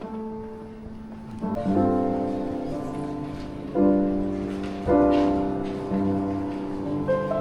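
Slow piano music: chords struck every second or two and left to ring.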